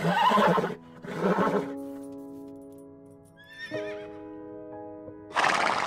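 A Clydesdale horse makes loud, noisy calls or snorts: two close together at the start and one near the end, over gentle piano music with held notes. Shortly before the halfway point a puppy gives a few faint, high, wavering whimpers.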